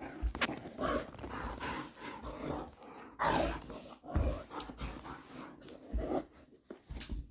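A large dog rolling and wriggling on its back on a carpet, breathing hard and making playful vocal noises, with louder bursts about three, four and six seconds in.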